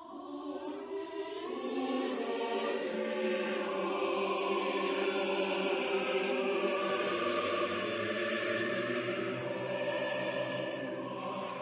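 Choral music: sustained, layered voices that swell in over the first two seconds, hold, and fade away near the end.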